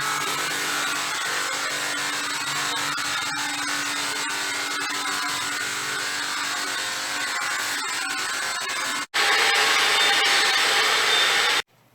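Cordless pressure washer motor running steadily with the hiss of its spray. About nine seconds in it cuts abruptly to a louder, hissier spray sound.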